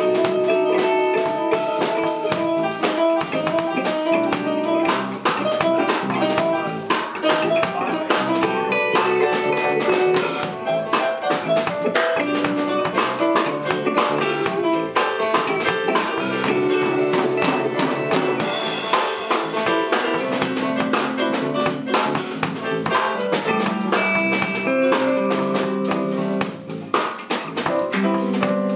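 Live instrumental band playing: electric guitar, drum kit and electric bass, with busy drumming under changing guitar and bass lines.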